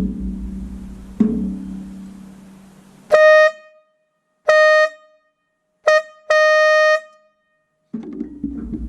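Nathan K5 air-horn number 5 bell, whose throat is mouse-chewed at the diaphragm end, blown in four short blasts, the last the longest, each a clear high horn tone cut off sharply. Before the blasts a lower-pitched tone starts sharply twice and fades away, and another low tone starts near the end.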